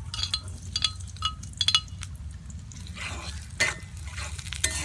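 A metal spatula clinks sharply against a plate and a steel karai about four times as chopped onion is scraped into hot oil. In the second half the onion sizzles in the oil while the spatula scrapes and stirs it.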